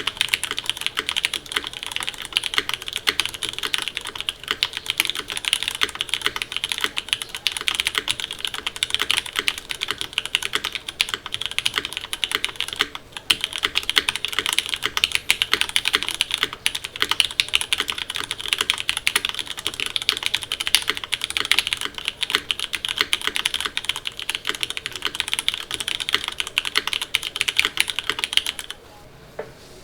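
Continuous fast typing on a Cloudline mechanical keyboard: an O-ring-mounted aluminium plate with no foam, lubed linear Cherry MX Black switches and GMK keycaps. A dense, irregular clatter of keystrokes that stops abruptly shortly before the end.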